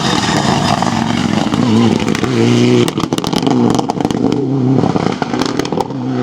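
Rally car engine at high revs, its pitch climbing and dropping several times as it is driven hard, with scattered sharp crackles and clicks.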